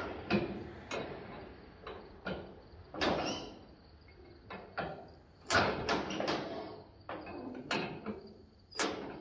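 A dozen or so sharp clanks and knocks at uneven intervals, some single and some in quick pairs, with no engine running.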